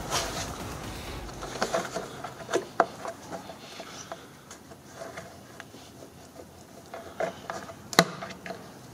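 Plastic trim-clip removal tool and fingers working a tight push-pin retainer out of a plastic radiator cover panel: scattered light plastic clicks and scrapes, with one sharp click near the end.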